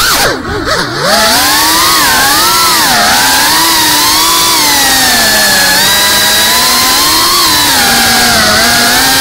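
GEPRC Cinelog35 cinewhoop's brushless motors and props whining, the pitch rising and falling with the throttle. Shortly after the start the throttle is chopped: the whine drops steeply in pitch and level, then climbs back up within about a second.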